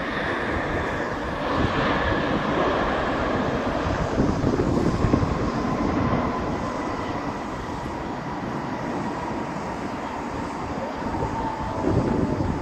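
The GE90 turbofans of a Boeing 777 on its landing rollout. The jet noise swells for a few seconds after touchdown, then settles to a steadier rush with a faint whine that drifts slightly lower as the engines spool down.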